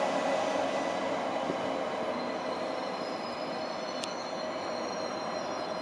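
ICE high-speed train rolling into the platform and braking, its running noise dying away as it slows. A thin, high-pitched squeal of wheels and brakes sets in about two seconds in, with a single sharp click about a second later.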